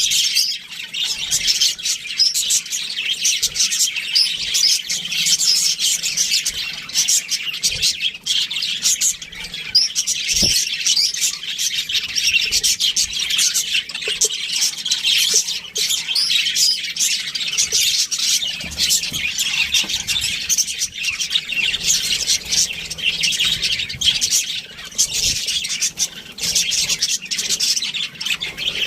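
A flock of budgerigars chattering and chirping without a break, many birds at once, with short sharp chirps and squawks over a steady warbling.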